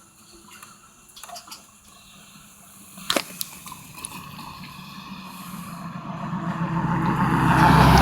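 A motor vehicle's engine approaching and growing steadily louder, its low hum and noise peaking near the end, after a few sharp clicks in the first three seconds.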